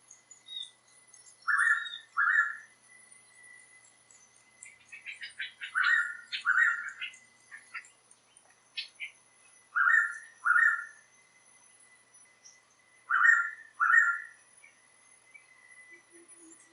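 Blue pitta calling: four double-note calls, each a pair of short falling whistles about half a second apart, repeated every three to four seconds. A rapid run of fainter chirps from another bird comes a few seconds in, and a steady high whine runs behind.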